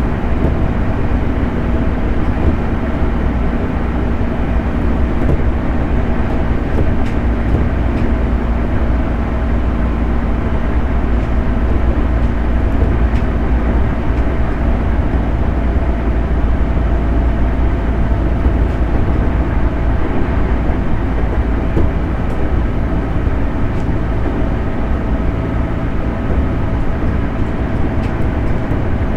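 JR 211 series electric multiple unit running at a steady speed on the Tokaido Main Line. A constant low rumble of wheels on rail carries a few faint, even tones that do not rise or fall.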